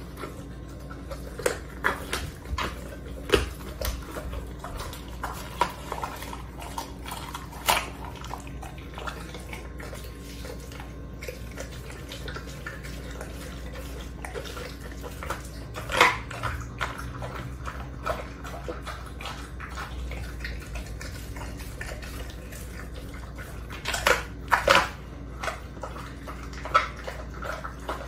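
A large dog chewing a raw whole chicken, with irregular sharp crunches and cracks of bone and wet chewing in between; a cluster of the loudest crunches comes near the end.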